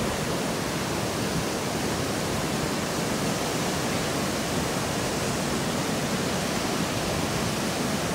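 Steady rush of water pouring through a dam's spillway gates and churning into the river below.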